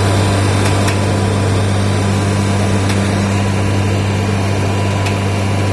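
Aluminium-plastic film separation machine running steadily, a strong low hum under an even rushing noise, with a few faint ticks.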